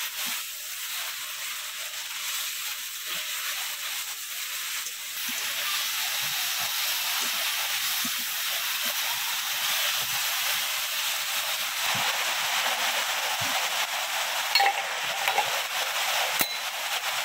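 Vegetables sizzling steadily as they fry in hilsa fish oil in a pan, with a couple of sharp clicks near the end.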